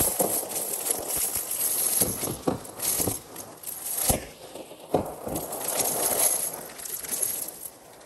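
Small hard, dry bits of loose debris clinking and crackling in irregular bursts, with several sharp clicks, dying down near the end.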